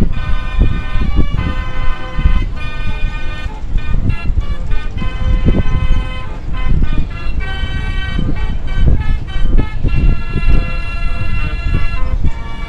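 Background music: sustained horn-like chords that change about once a second over a heavy, pulsing bass.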